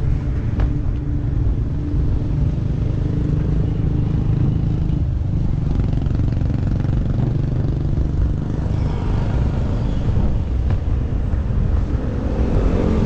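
Wind rumbling steadily on the action camera's microphone while riding a bicycle along a road, with the engines of passing motor traffic mixed in. The engine noise grows louder near the end as heavier traffic comes close.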